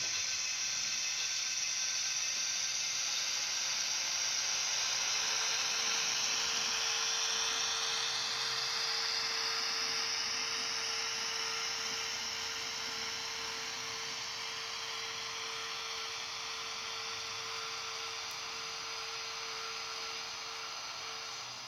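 Sound decoder (ESU LokSound) of a Bemo model Rhaetian Railway electric locomotive playing running sound through its small speaker: a steady hiss with a whine that slowly falls in pitch, and a steady hum joining about five seconds in. It fades slightly near the end as the model moves off.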